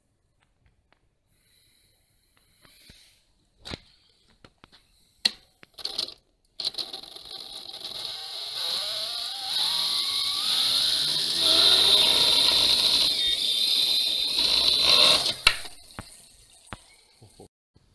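Small outrunner brushless motor of a homemade friction drive, run off a 22-volt LiPo pack, spinning the bicycle's rear tyre. It starts after a few clicks, runs for about nine seconds with a steady high whine and a hum that climbs in pitch as it speeds up, then cuts off.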